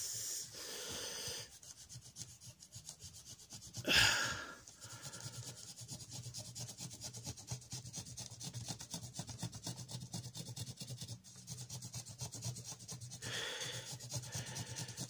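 Pencil scratching on paper in quick, repeated short strokes, the sound of hair being hatched in on a drawing. A brief, louder rush of noise about four seconds in.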